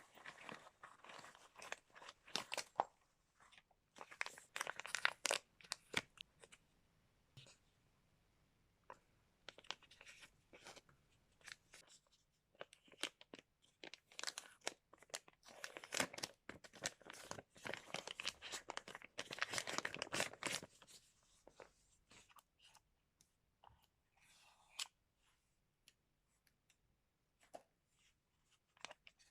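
Product packaging being handled and torn open: irregular bursts of tearing, crunching and crinkling, busiest through the first twenty seconds or so and sparser near the end.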